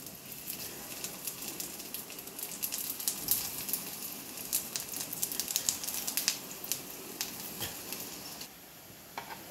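Arvi (taro root) kababs shallow-frying in hot oil in a pan: a steady sizzle with many irregular crackling pops as more patties are laid in, easing a little near the end.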